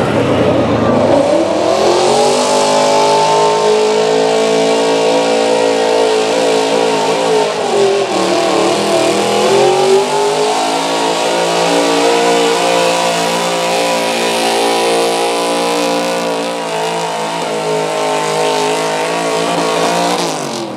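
1976 Ford F-250 pickup's gas engine at full throttle pulling a truck-pull sled. Its pitch climbs and holds high, sags for a couple of seconds about eight seconds in, then climbs back and holds until it drops away right at the end.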